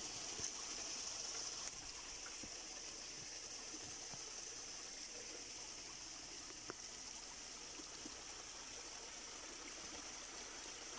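Steady rainforest ambience: an even hiss with a high-pitched insect drone over it and a few faint clicks.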